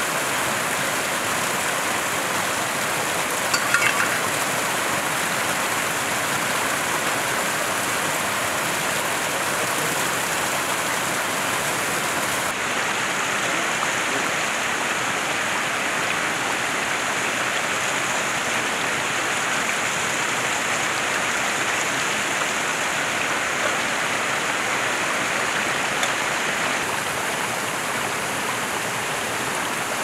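Small waterfall and stream running steadily, with a brief clatter of a few knocks about four seconds in.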